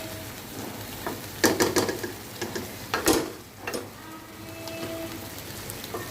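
Chicken curry sizzling in a pan, with two bursts of clattering knocks, about a second and a half in and again about three seconds in.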